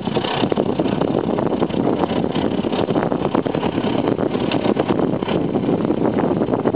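Wind buffeting a moving camera's microphone: a loud, steady rush with irregular gusts.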